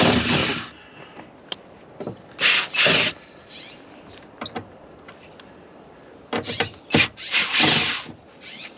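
Power drill-driver running in three short bursts, backing out the screws that hold the truck's rear door panel.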